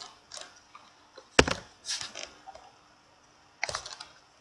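Computer keyboard keystrokes and mouse clicks: a few short clicks and taps in small clusters, the loudest about a second and a half in.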